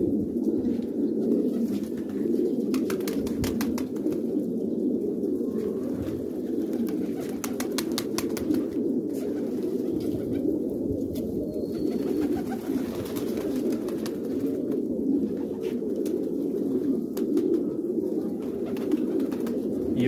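A flock of domestic pigeons cooing steadily, many birds' coos overlapping into one continuous low sound.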